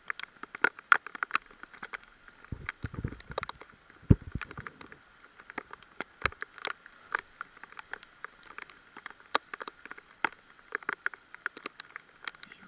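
Raindrops falling in an irregular scatter of sharp little taps, with a low muffled rumble and bump about three and four seconds in.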